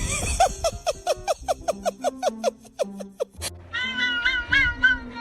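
Cat meowing in a quick run of short, evenly spaced mews, about four a second, over a music track with a steady beat. A little past halfway the mews give way to higher, drawn-out bending cries.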